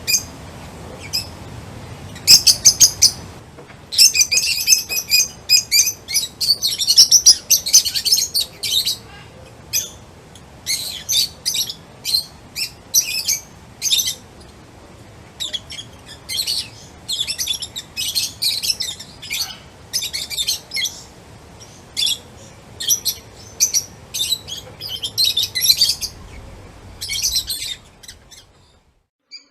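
Songbirds chirping: many quick, high chirps and short trills in rapid bursts, densest in the first third. They stop shortly before the end.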